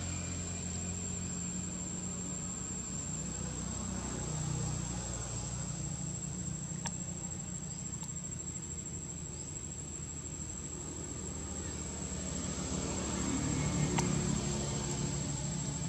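Insects droning in one steady, high-pitched note, over a low hum that swells near the end, with a couple of faint clicks.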